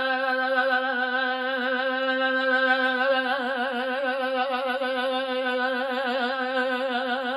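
A woman holds one long sung note with her mouth open while shaking her jaw loose, as a vocal warm-up exercise. The shaking makes the note waver, more strongly from about three seconds in.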